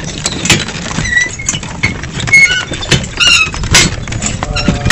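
Hooves of a two-horse team pulling a cart along a dirt track: an uneven run of clopping knocks, with a few short high chirps over it.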